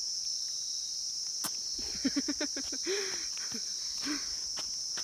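A steady high-pitched drone of insects. About two seconds in, a small child makes a quick run of short voice sounds, then a single short note, and another near the end.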